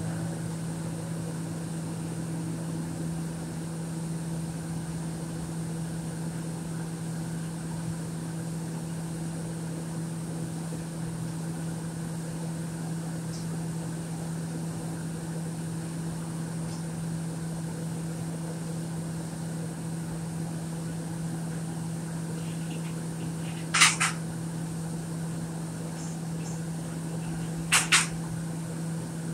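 Steady, unchanging low hum of offshore machinery such as engines or generators. Near the end come two sharp double clicks about four seconds apart.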